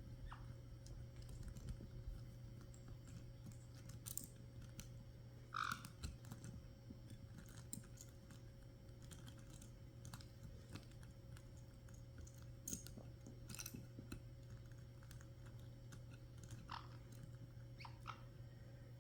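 Caique parrots chewing and tearing with their beaks: a scatter of faint, irregular clicks and crunches. A few short, high squeaks come through, one about six seconds in and two near the end.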